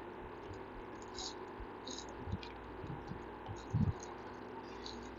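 Faint scattered taps and scrapes of a stylus writing on a tablet, over a low steady background hum.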